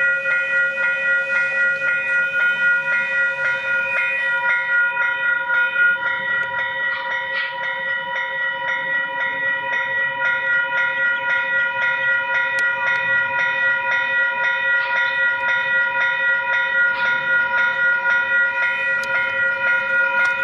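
Western-Cullen-Hayes electronic level crossing bell ringing continuously as a rapid, evenly repeated bell strike, signalling that the crossing is active for an approaching train.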